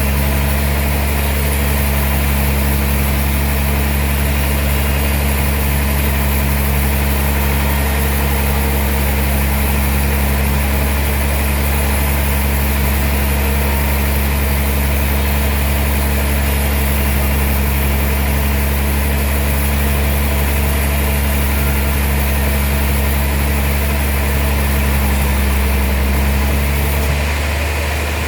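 Sawmill machinery running with a steady, loud low drone and an even hiss, shifting slightly near the end.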